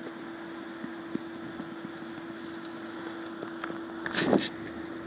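Steady low hum and hiss of a desk microphone's background noise, with a few faint ticks and a short, louder double noise about four seconds in.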